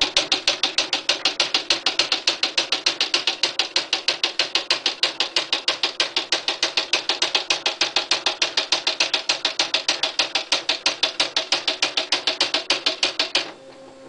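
Smith Corona SD750 electronic typewriter printing a stored sentence from its memory automatically: a fast, even run of print strikes, about seven a second. Near the end the strikes stop and a short motor hum follows.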